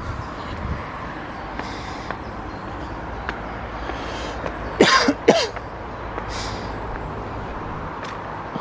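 Two quick coughs, close and loud, about five seconds in, over steady traffic noise and footsteps on a path.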